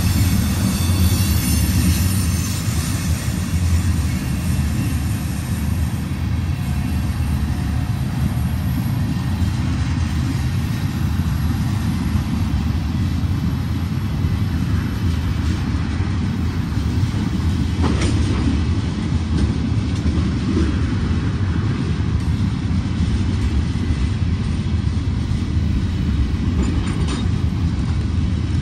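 Empty ethanol tank cars of a freight train rolling past close by: a steady low rumble of steel wheels on rail, with one sharp clank about two-thirds of the way through.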